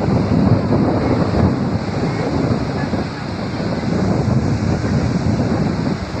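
Wind buffeting the microphone over the noise of sea surf: a loud, steady rough noise that swells and dips unevenly.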